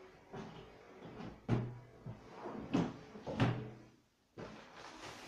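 Cardboard box being handled on a wooden desk: three solid thumps and knocks as it is moved and set down, with lighter rustling in between and after.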